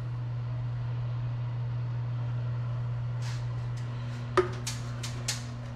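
Steady low electrical hum, with a few light clicks in the second half.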